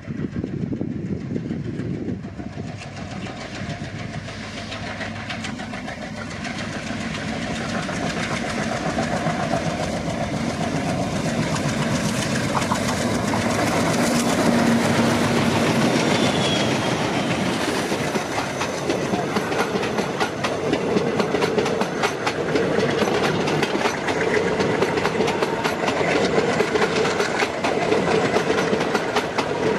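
Twin ALCO diesel locomotives, a WDM3A leading a WDM3D, running under power as they pull a passenger express past; the engine sound grows louder to a peak as the locomotives go by about halfway through. The coaches then roll past with a steady clickety-clack of wheels over rail joints.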